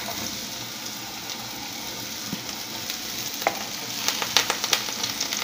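Diced onion and garlic frying in a nonstick frying pan, a steady light hiss, with a few short taps in the second half.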